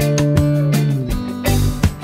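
Background music: guitar with a drum beat.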